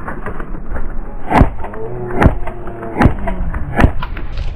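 Four sharp airsoft gunshots, single shots spaced about a second apart, with faint shouting behind them.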